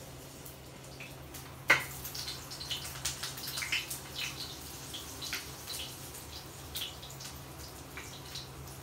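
A cat drinking from a dripping kitchen tap: a run of small, irregular wet ticks and drips on a steel sink, with one sharp click about two seconds in.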